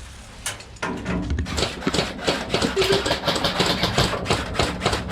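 Airsoft guns firing, a dense rapid rattle of clicks and knocks that starts about a second in.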